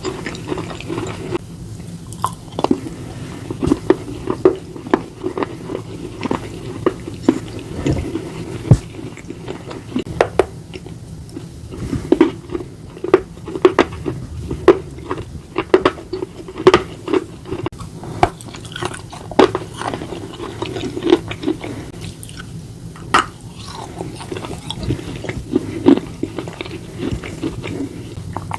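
Someone biting and chewing slate pencil pieces and a slate bar with paste: sharp, irregular crunches several times a second, with chewing between bites.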